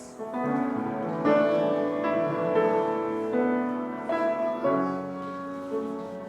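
Keyboard playing slow, sustained chords that change every second or so.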